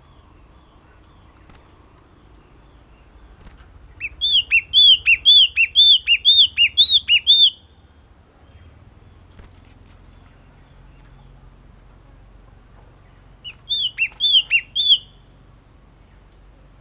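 Caged yellow-cheeked tit (chi chi mào) singing two runs of repeated notes that alternate high and low. The first run of about a dozen notes comes about four seconds in, and a shorter run of about six notes comes near the end.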